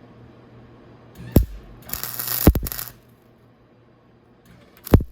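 A welder striking an arc for a single tack weld on a broken steel motorcycle muffler: about a second of crackling arc noise roughly two seconds in, with sharp clicks shortly before it and near the end.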